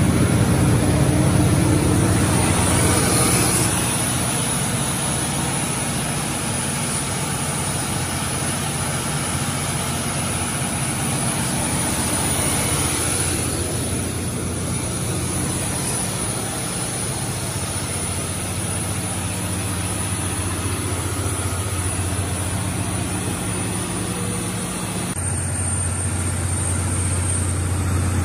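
200 kW Cummins natural-gas generator set running steadily at full rated load (about 203 kW, 101%), a constant low engine hum. It is a little louder for the first few seconds, and the low hum changes slightly near the end.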